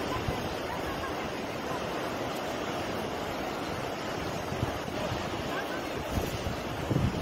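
Steady rush of wind buffeting the microphone over the sound of sea surf, gusting louder near the end.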